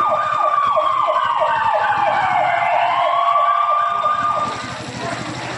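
Electronic emergency siren: a steady high wail with a rapid chirping warble beneath it. The wail dips once and rises again, and the whole siren cuts off about four seconds in.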